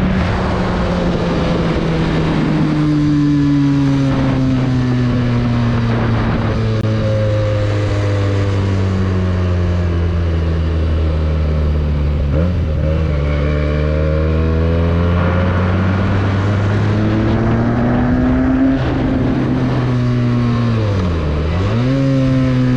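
Benelli 302S motorcycle's parallel-twin engine running on the road: the revs fall slowly for about ten seconds, then climb again, with a brief sharp dip and recovery near the end.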